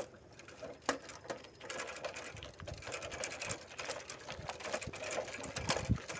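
Bicycle ridden over a rough track, making a fast, uneven run of rattles and clicks, with a low knock near the end.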